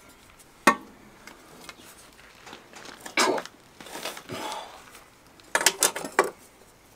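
A metal square and marker clinking and tapping against the edge of a granite sink while a cut line is marked out: one sharp click about a second in, then more clinks and a short scrape around three to four seconds, and a quick run of clicks near the end.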